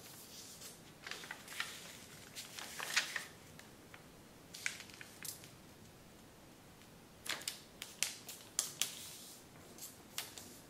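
A large sheet of kami origami paper crackling and rustling as hands fold and crease it, in several bunches of crisp crinkles, the loudest about three seconds in.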